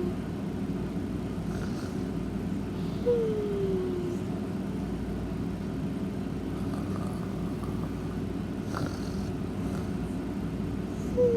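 A sleeping pet snoring: a steady low rumble with a short whistling squeak that slides down in pitch, once about three seconds in and again at the very end.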